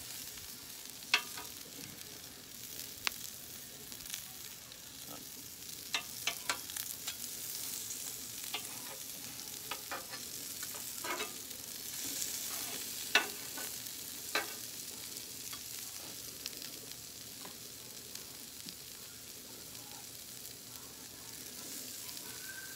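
Vegetables and chicken sizzling on a hot steel flat-top griddle, with a metal spatula scraping and clacking against the plate as it chops and turns sliced onions and vegetables. The sizzle is a steady hiss; the spatula strikes come irregularly, about a dozen sharp clacks, the loudest a little past the middle.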